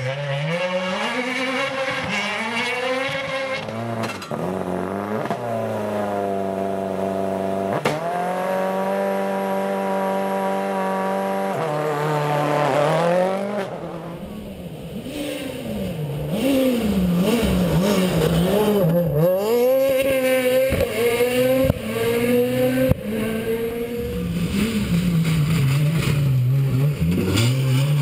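Rally car engines at full throttle on a special stage: revs climb and drop through quick gear changes. About halfway through the sound switches to another car, whose engine rises and falls sharply between corners, with short bangs and some tyre noise.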